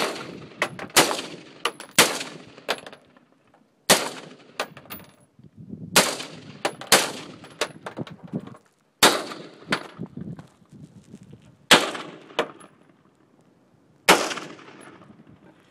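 AR-15 rifle firing a steady string of single semi-automatic shots, about a dozen, spaced roughly one to two seconds apart. Each shot is sharp and trails off in an echo.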